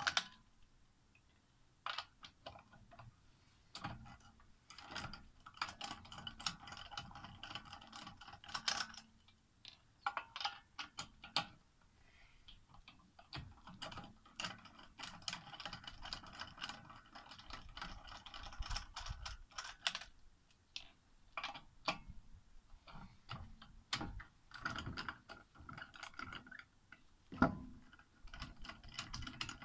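Socket ratchet wrench clicking in fast runs as it turns a car's wheel nuts, stopping and starting between strokes, with a single knock near the end.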